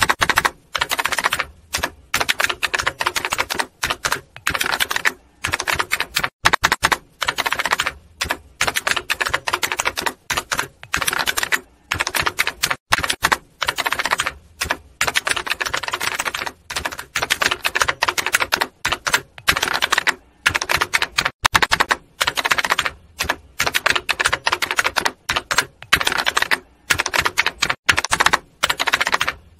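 Typewriter keys clacking in quick, irregular runs, broken every second or so by short pauses.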